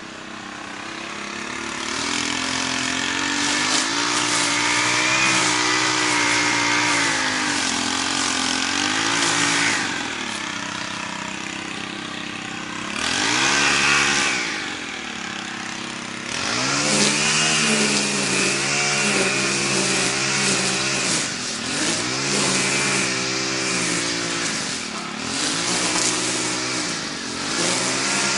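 Small gasoline lawn mower engine running under load while mowing thick, overgrown grass. Its pitch repeatedly dips and recovers, and it grows louder and fainter as the mower moves nearer and farther.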